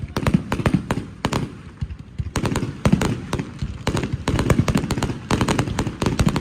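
Aerial fireworks bursting in rapid succession: sharp bangs and crackles several times a second over a low rumble, with a brief lull about two seconds in.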